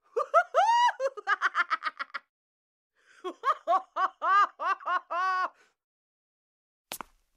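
High-pitched giggling in two bursts of quick, rising-and-falling laughing syllables, with a short pause between them. A short tap near the end.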